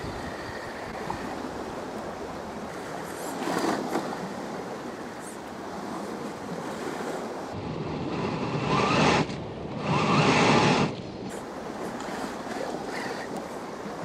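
Steady wash of waves and wind, with two louder surges about two-thirds of the way through. A faint, thin whine from the Traxxas TRX-4 crawler's electric motor and gears fades after the first couple of seconds.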